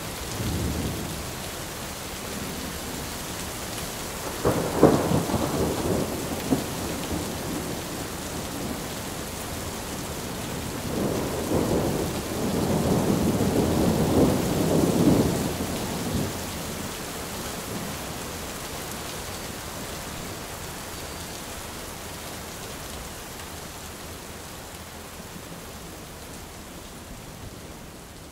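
Steady rain with thunder: a sudden clap about four and a half seconds in, then a longer rumble from about eleven to sixteen seconds in. The rain slowly fades out near the end.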